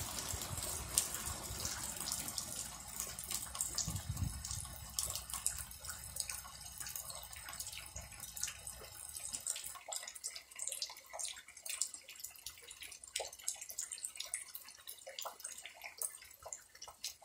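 Steady rain with many separate drops dripping and splashing close by, each a small click. A low rumble under it in the first half stops about ten seconds in.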